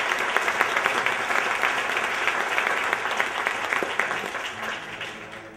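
Theatre audience applauding, with many hand claps, dying away over the last second or two.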